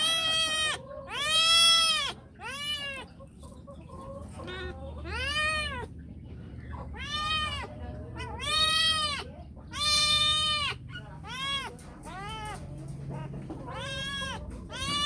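A domestic cat meowing repeatedly, about a dozen meows, each rising then falling in pitch, asking to play.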